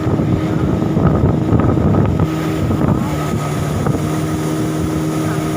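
Small motorboat engine running steadily, its hum carried over rushing wind and water noise. Between about one and two seconds in, the engine tone is briefly swamped by a louder rough rush.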